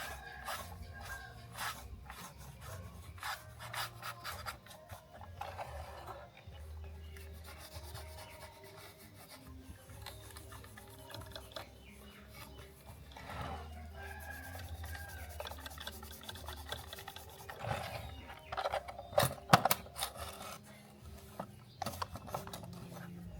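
Hand work on a small toy car: irregular rubbing and scraping, broken by scattered clicks and taps that come thickest and loudest a little after the middle.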